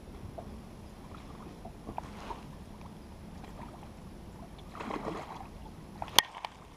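Water lapping against the hull of a small open boat, with light knocks, as a hooked fish is played and netted: a splash about five seconds in and a sharp knock a little after six seconds.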